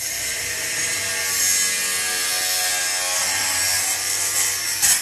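Cordless brushless angle grinder cutting through steel with a thin metal-cutting disc: a loud, steady grinding hiss over the disc's whine, stopping sharply near the end as the disc comes out of the metal.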